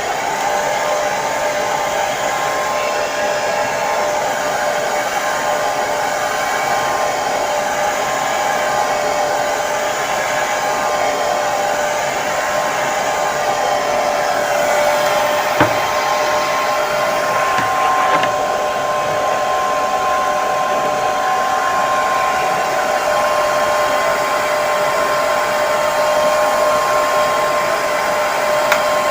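Hair dryer running steadily, a constant rush of air with a steady motor whine. Two small clicks come about halfway through.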